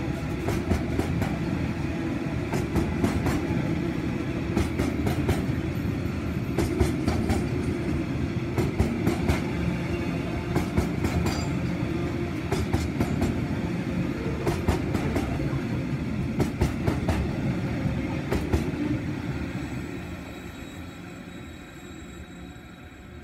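Loaded bauxite hopper wagons rolling past close by: a steady heavy rumble with frequent sharp wheel clacks. The sound fades away from about twenty seconds in as the tail of the train passes and draws off.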